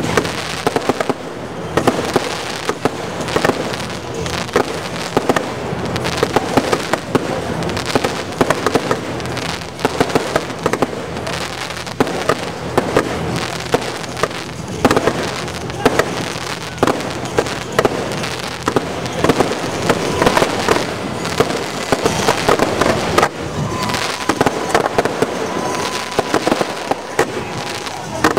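Aerial fireworks display: a continuous, dense barrage of bangs and crackling from shells bursting overhead.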